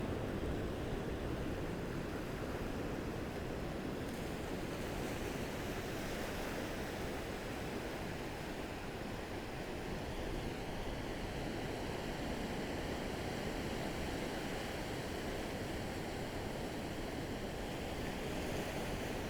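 Ocean surf: gentle waves washing onto a sandy beach as a steady, even rush of water.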